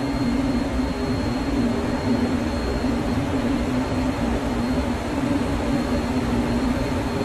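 Steady, loud background machinery drone with a strong low hum and no pauses, plus a faint thin high tone that fades out about halfway through.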